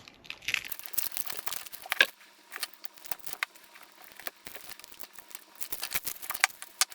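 Kapton tape being cut and peeled off a wire-harness bundle: a dense crackling, tearing rustle for a second or so near the start, then scattered small crinkles and clicks as the tape is worked off.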